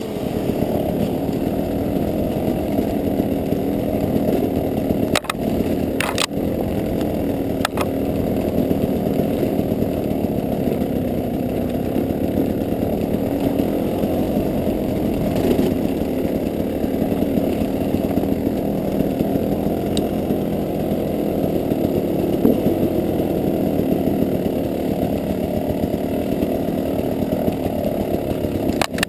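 KTM dirt bike engine running while riding a forest trail, its pitch rising and falling with the throttle. A few sharp knocks come through in the first eight seconds.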